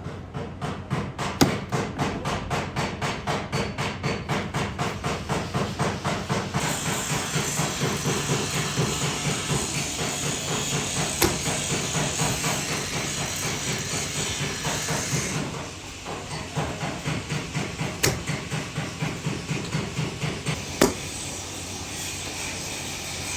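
Rapid light hammer taps on a car's sheet-metal body panel, about three a second, as hail dents are worked out. A steady hiss joins the tapping for several seconds in the middle. The tapping pauses briefly, then resumes with a couple of louder knocks before stopping near the end.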